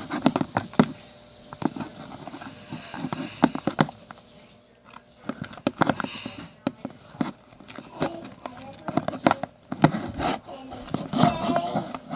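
Popsicle stick stirring fluffy glue-and-shaving-cream slime in a bowl: irregular sticky clicks and taps of the stick against the bowl and the slime.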